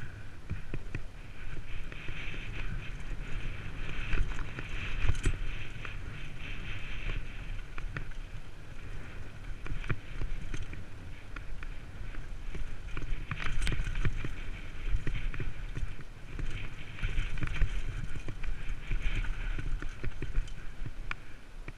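Downhill mountain bike rolling fast over a dry, stony dirt trail: tyres rattling on gravel and rock, with rumbling wind buffeting the microphone. Sharp knocks from the bike hitting bumps come twice clearly, about five seconds in and again past halfway.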